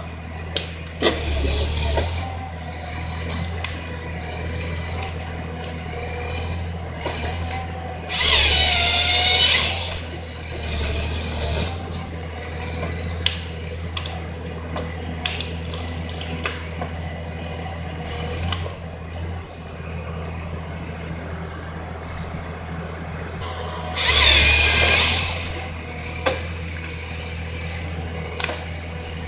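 Timberjack forestry harvester at work: its diesel engine runs steadily under scattered knocks and cracks from the harvester head gripping and feeding stems. Twice, about eight seconds in and again near twenty-four seconds, the head's saw bar cuts through a log, a loud whine that sags in pitch as it bites and then recovers.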